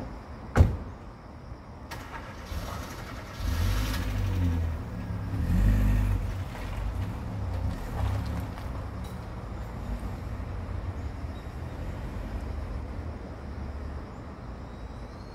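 Low rumble of a motor vehicle passing. It swells about three and a half seconds in and fades after about eight seconds, following a single sharp knock near the start.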